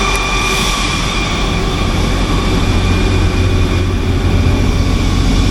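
400 kW natural-gas generator set running under test with its load banks, a loud steady drone with several fixed whining tones over it. The low engine note grows stronger about a second in.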